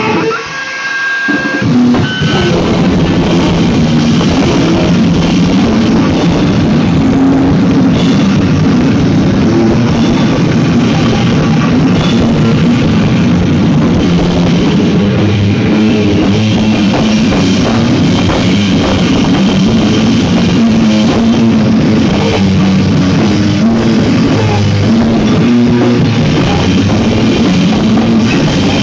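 Live rock band playing, electric bass guitar and drum kit, loud. The full band kicks in about two seconds in after a brief thinner stretch of held notes.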